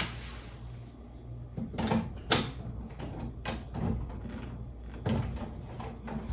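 Hook pole knocking and catching on the metal ring fitting of a wooden ceiling attic hatch: a handful of sharp knocks and clicks, the loudest about two seconds in, over a steady low hum.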